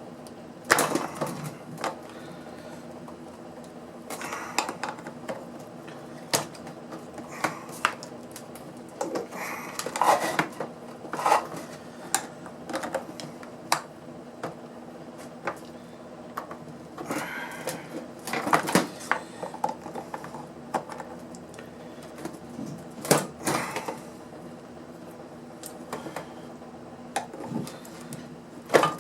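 Irregular clicks, knocks and clatters of hand tools and loose parts being handled while a portable power pack is dismantled for scrap, with a steady low hum underneath.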